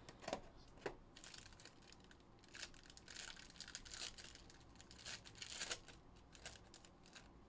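Shiny foil wrapper of a Panini Crown Royale trading card pack being torn open, with faint crinkling and tearing in several short bursts. A couple of sharp clicks come in the first second as the box is opened.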